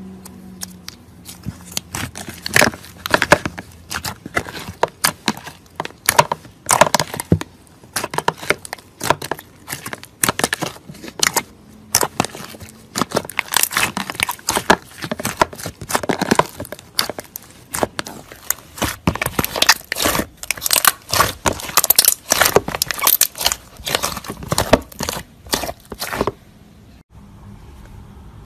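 Slime topped with a white crust being pulled apart and kneaded by hand, giving a dense, irregular run of crackles and pops. The crackling stops about two seconds before the end.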